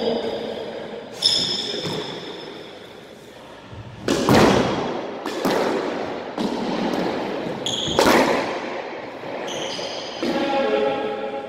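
Squash ball thumping off the racket and walls, with a loud hit about 4 s in and another about 8 s in and lighter ones between, and court shoes squeaking sharply on the hardwood floor.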